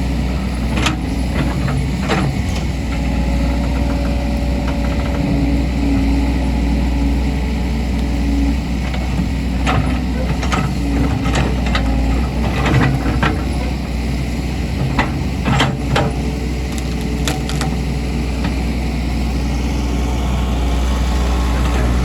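Doosan DX140W wheeled excavator's diesel engine running steadily, with many sharp knocks and cracks from the bucket working roots and brush, most of them bunched in the middle.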